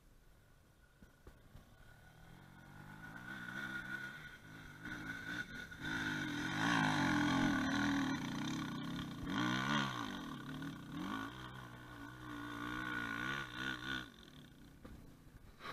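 Enduro motorcycle engine climbing a steep sandy hill, growing louder as it approaches and revving up and down with the throttle. It fades near the end as the bike goes over the crest.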